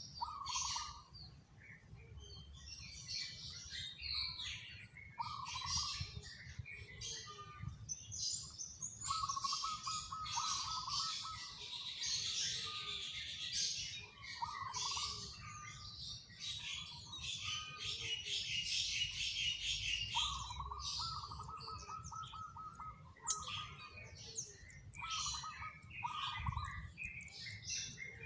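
Zebra dove (perkutut) cooing in repeated phrases of soft rolling coos, two longer ones around ten and twenty seconds in, with other small birds chirping and twittering throughout.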